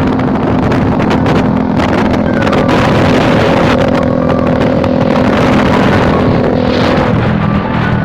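Suzuki GSX-R150's single-cylinder four-stroke engine running through an aftermarket CLD exhaust while the bike is ridden, a steady loud exhaust note that drops a little in pitch about seven seconds in.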